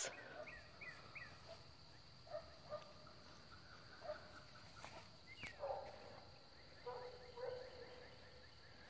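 Faint outdoor ambience: a steady high insect drone with scattered short bird chirps.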